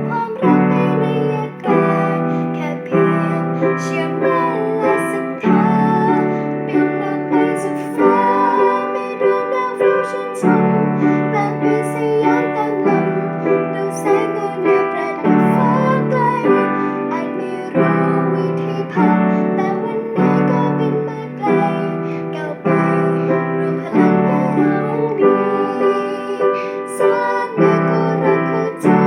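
Piano played in steady, repeated chords, with a woman's singing voice over it in places.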